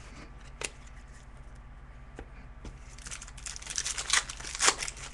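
Foil trading-card pack wrapper being torn open and crinkled. A few light clicks come first, then a dense crackling run starts about three seconds in and is loudest near the end.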